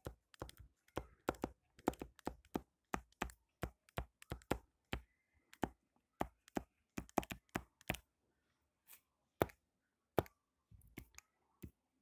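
Stylus tapping and clicking on a tablet screen during handwriting: a quick, irregular run of sharp clicks that thins out about eight seconds in.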